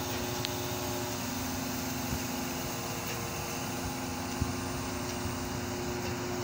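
Mobile crane's diesel engine running steadily while it hoists a chiller unit, with a faint knock about four seconds in.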